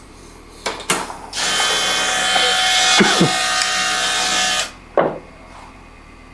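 A loud, steady whirring hiss with several whining tones, lasting about three seconds, with a few clicks before it and a single knock about five seconds in.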